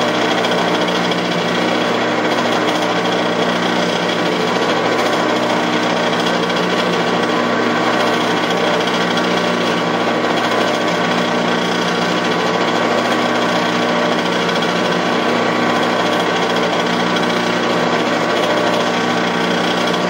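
Metal lathe running steadily at about 70 RPM, a constant mechanical whir with a steady hum, while a .249-inch reamer is fed from the tailstock through the drilled bore of a muzzleloader breech plug.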